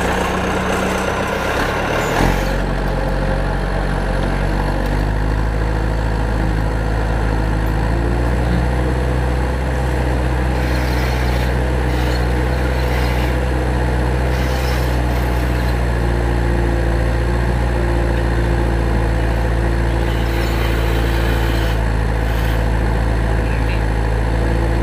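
An engine idling steadily with a low hum. Its note shifts a few times in the first several seconds, then holds.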